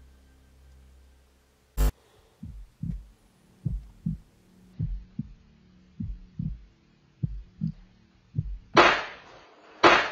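Horror-style sound design: a sharp hit, then a heartbeat effect thumping low in lub-dub pairs about once a second, ending in two loud noisy hits near the end.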